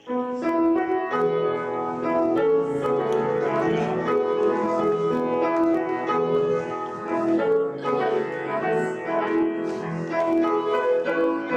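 Instrumental piano music played as the offertory during the collection of the offering. Several notes sound at once in a flowing line, and it comes in fully right at the start.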